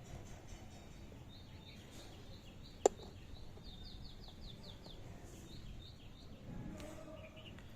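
A small bird chirping a quick run of high, repeated notes, with one sharp click a little before the middle.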